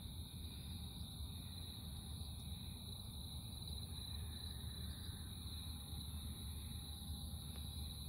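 Night insects calling steadily in two high-pitched bands, with a low rumble underneath.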